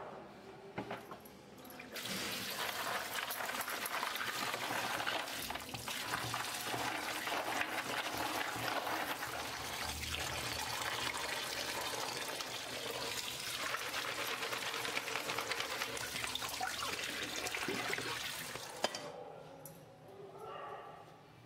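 A stream of water running onto a colander of raw peanuts in their shells, washing them; it starts about two seconds in and stops a couple of seconds before the end.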